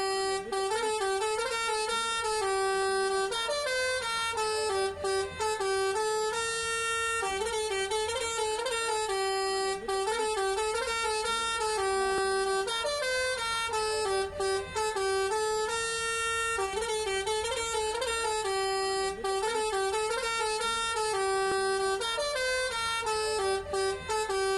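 Basuri 'telolet' multi-tone bus horn playing a stepping melody of held horn notes, the tune repeating about every six and a half seconds with brief gaps between some notes.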